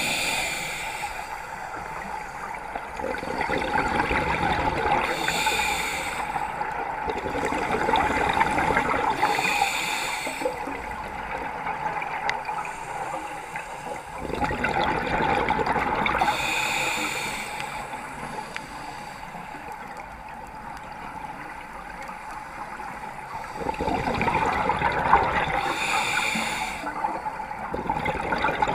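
Scuba diver breathing through a regulator underwater: a short hiss on each inhale, then a long bubbling rush on each exhale. There are about five breaths, several seconds apart.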